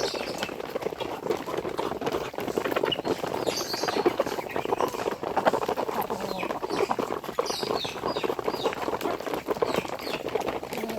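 Poultry flock making a dense, continuous clatter of many short pattering clicks, mixed with scattered short calls from the birds.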